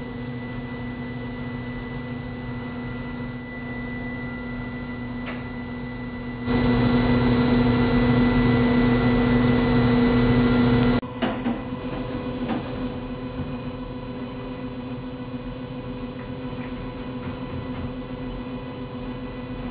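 Steady mechanical hum with a thin high whine from a mash tank's agitator running, its shaft stirring the mash. It grows clearly louder for about four seconds near the middle, then drops back to the earlier level.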